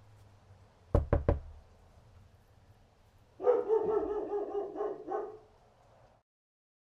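Three sharp knocks in quick succession, then a dog barking in a rapid run for about two seconds.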